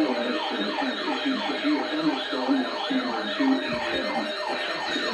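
Siren-style electronic alert sound: a fast, even run of falling pitch sweeps, about three a second.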